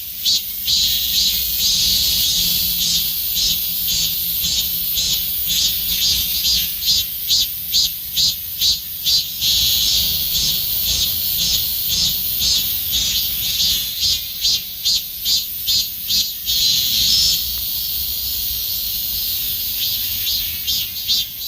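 Korean robust cicada (Hyalessa fuscata) singing loudly, its song alternating several times between runs of rapid rhythmic pulses, about two or three a second, and a steady held buzz.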